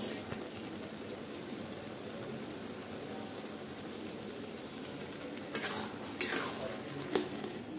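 Grated carrot halwa sizzling and bubbling in a kadhai, a steady frying hiss. Near the end a flat metal spatula scrapes and stirs it against the pan in three sharp strokes.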